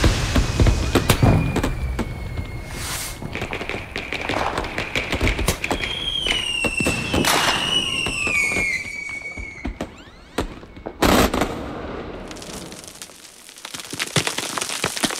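Sound-design soundtrack of dense sharp cracks and bangs, like fireworks going off. A thin whistling tone runs through the first half and falls in pitch around the middle, and one loud blast comes about eleven seconds in. The cracking thins out and dips before picking up again near the end.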